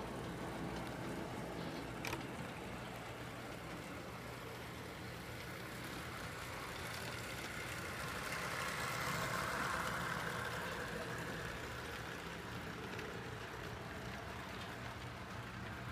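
Model diesel locomotives and freight cars rolling along layout track: a steady whir of electric motors and wheels on rail with a low hum beneath, growing louder as the train passes close, around nine seconds in.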